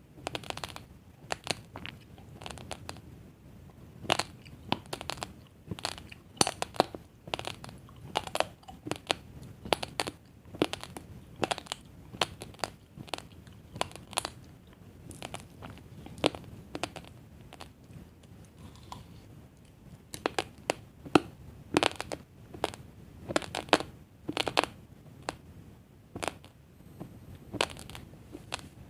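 Uncooked basmati rice grains being chewed: an irregular run of sharp crunches and cracks, several a second, with a brief lull a little past the middle.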